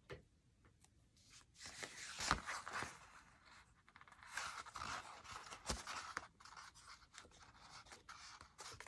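Paper and cardstock being handled and folded, rustling and scraping, with a couple of light knocks on the desk.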